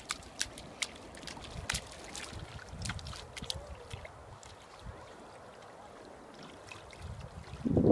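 Beach ambience of wind rumbling on the phone microphone, with scattered small splashes and clicks of bare feet stepping in shallow water. There is a louder rumble near the end.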